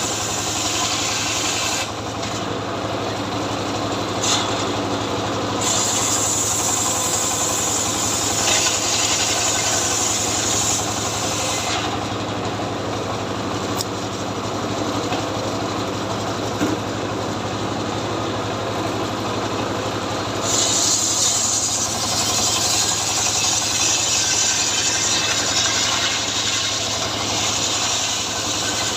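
Two-stroke chainsaw engine running steadily at an even pitch. Its sound turns brighter and harsher in stretches of several seconds and duller in between.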